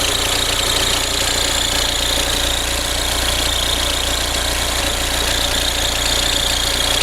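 Audi A4 B6's 1.9 TDI four-cylinder diesel engine idling steadily, carrying a noise that the mechanic puts down to a faulty tensioner.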